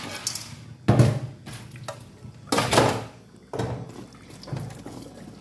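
Water being swished and splashed by hand in a steel bowl of soaking cloves, in about four short bursts roughly a second apart.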